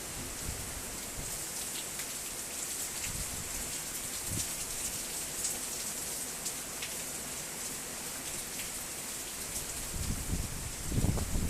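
Heavy rain mixed with sleet falling: a steady hiss with scattered sharp ticks of drops and pellets striking. Near the end, low rumbling bumps rise over it.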